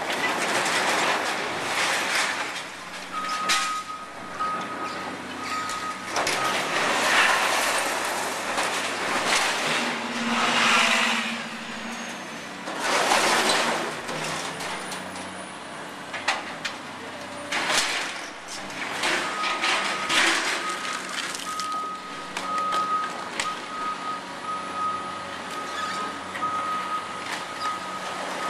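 Hydraulic excavator demolishing a storefront awning: its engine runs while wood and metal break and debris crashes down in several loud bursts. A back-up alarm beeps for a few seconds early on and again through most of the second half.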